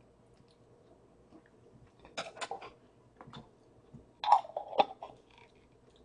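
Close-miked chewing: a person eating food, with short moist crunching clicks in three clusters about two, three and four seconds in.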